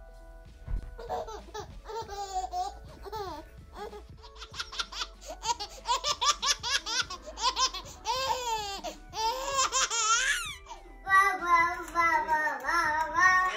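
A baby laughing in quick repeated bursts, with babbling vocalisations.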